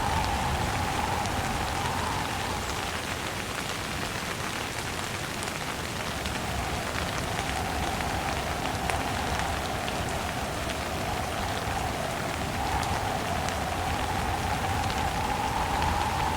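Steady rain falling, with scattered drop ticks, under a gusting wind whose tone swells and fades in slow waves, dropping off mid-way and building again near the end.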